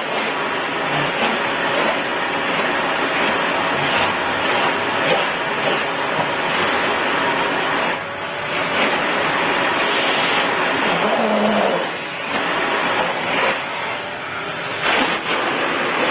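Vacuum cleaner running with a steady rushing noise, dipping briefly about eight seconds in and again about twelve seconds in.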